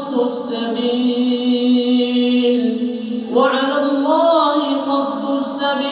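A male imam reciting the Quran in a drawn-out, melodic chant. He holds one long note that breaks off about three seconds in, then begins a new phrase that rises and wavers in an ornamented turn.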